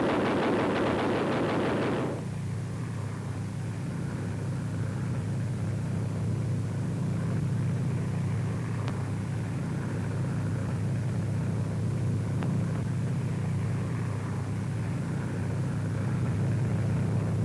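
Aircraft engines droning steadily, from a P-38 Lightning's twin engines, after a louder, rattling burst in the first two seconds.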